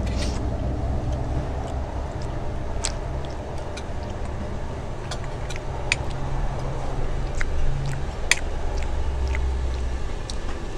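Low steady background rumble that swells for a few seconds near the end, with scattered light clinks of a metal fork and spoon against plates and bowls.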